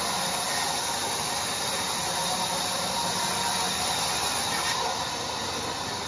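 Large sawmill band saw running, its blade ripping lengthwise through a log slab: a steady, high-pitched noise that eases slightly about five seconds in.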